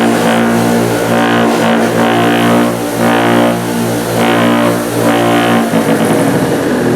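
Background music: low sustained notes with a pulse about once a second.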